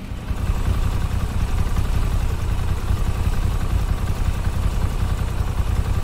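Moto Guzzi V7 Stone motorcycle's air-cooled transverse V-twin engine running steadily.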